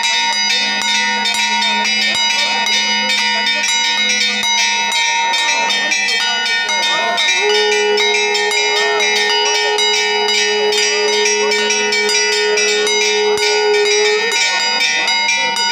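Temple bells ringing continuously during a puja, many overlapping metallic tones struck in quick succession. A single long steady tone joins in about seven seconds in and stops about a second and a half before the end.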